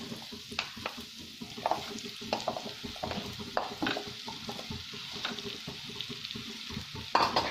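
Mashed boiled potato going into a nonstick kadhai of hot oil and sizzling, while a wooden spatula scrapes and knocks against the pan and bowl in short irregular clicks; a louder clatter near the end.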